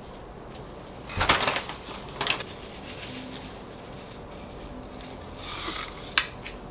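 Kitchenware being handled: a sharp clatter just after a second in, another at about two seconds, then a brief rustle and a single click near the end.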